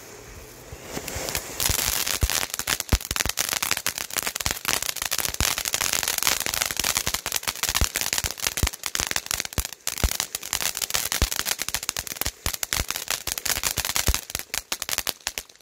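Standard Fireworks Emoji Fountain ground fountain firing. A hiss builds at the start, then about a second in comes a dense, continuous crackling of many small pops from its gold crackle and strobe effects. The crackling thins out and stops abruptly near the end.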